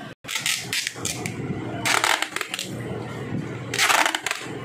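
Brown packing tape pulled off its roll in three loud, crackly rips and wrapped round a perforated steel casting flask, taping up the flask before it is filled with investment.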